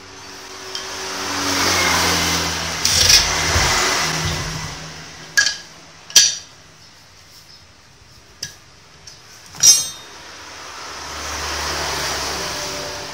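Two motor vehicles passing by in turn, each swelling up and fading away, the first about two seconds in and the second near the end. Between them come several sharp clicks and clinks from wires and small parts being handled.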